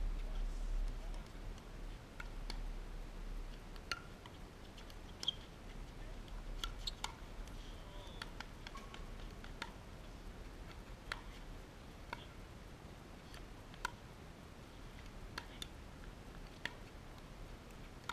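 Pickleballs being hit and bouncing on the hard courts: about a dozen sharp, hollow pocks at irregular intervals. Under them is a low rumble of wind on the microphone that fades after the first few seconds.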